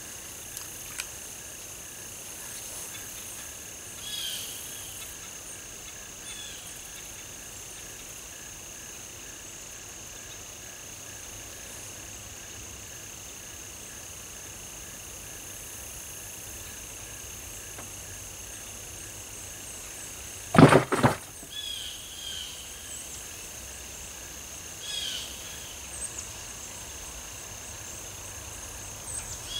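Steady insect chorus of high, even trilling, with a few short bird chirps scattered through it. About twenty seconds in, a brief loud double knock stands out above it.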